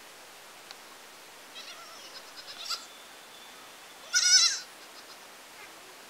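A young goat kid bleating once, loud and high, with a quavering pitch, about four seconds in.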